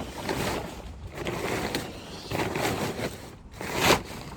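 Wrapping rustling as it is pulled off a front axle, in uneven bursts with a louder one near the end.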